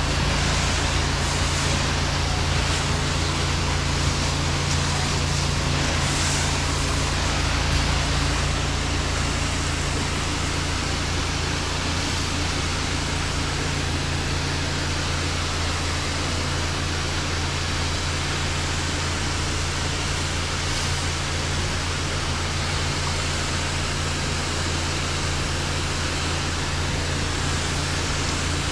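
Pressure washer running steadily with the hiss of its spray, soft washing a house wall with a downstreamed sodium hypochlorite mix.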